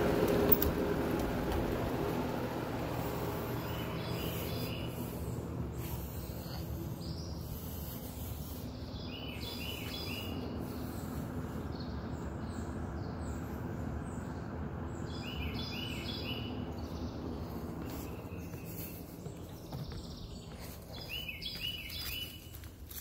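A songbird singing short phrases of quick chirping notes, repeated about every six seconds, over a low steady rumble that slowly fades.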